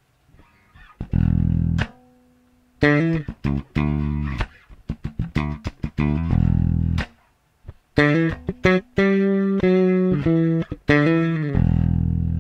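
Japanese-made Fender Jazz Bass with its stock vintage-style bridge, played fingerstyle: a bass line of plucked notes with short breaks about two and seven seconds in, ending on a held low note. It is the instrument's original tone with the factory bridge.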